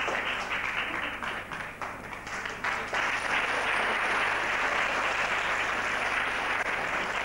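Audience applauding, with separate claps at first that thicken into denser, steady applause about three seconds in.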